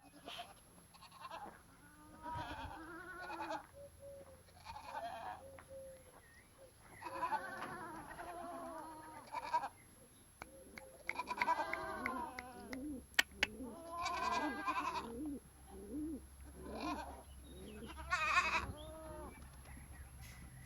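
Several goats bleating, with wavering, quavering calls repeated and overlapping every second or two throughout. There is one sharp click about two-thirds of the way through.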